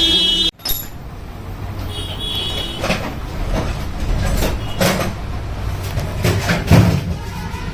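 Steady traffic rumble from the street, with about four sharp knocks and clinks between three and seven seconds in, the loudest near the end.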